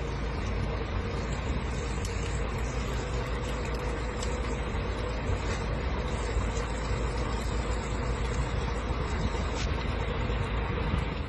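Heavy truck engine idling steadily, with a thin stream of water splashing into a puddle.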